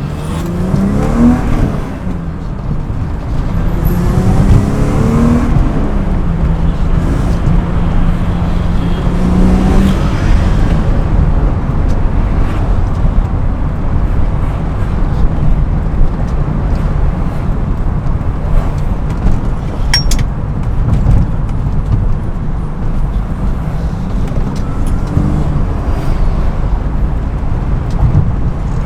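BMW E36 M3's straight-six engine under way, revving up and easing off several times in the first ten seconds, then settling into steady driving noise.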